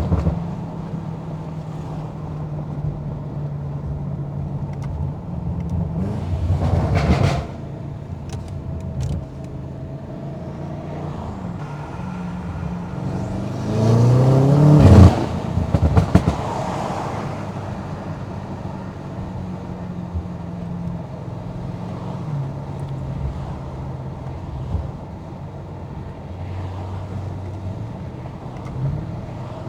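Tuned BMW M8 Competition's twin-turbo V8 cruising at low revs, with a short rev about seven seconds in and a hard pull about halfway that climbs in pitch and cuts off sharply. A string of exhaust pops and crackles follows the pull.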